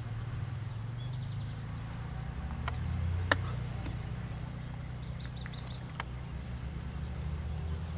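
Outdoor ambience: a steady low rumble, with short runs of quick high bird chirps about a second in and again about five seconds in, and a sharp click a little after three seconds.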